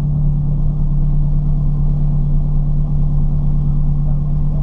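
Ford Fiesta ST engine running steadily at an even, unchanging pitch, with no revving.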